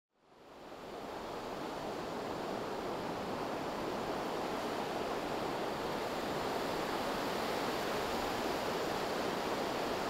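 Surf breaking and washing steadily, a continuous rushing wash that fades in over the first second.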